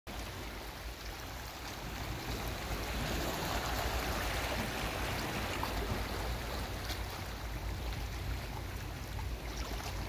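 Small waves washing and lapping over black basalt rocks at the water's edge: a steady rush of water that swells a few seconds in and eases off toward the end.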